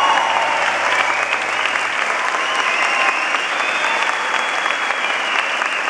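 Concert audience applauding just after a song ends, a dense, steady clapping.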